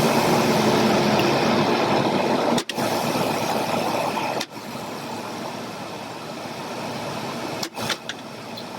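Toyota Tacoma engine idling steadily with the air conditioning running on high, heard from the open engine bay. The sound drops out briefly three times, each time coming back at a slightly different level.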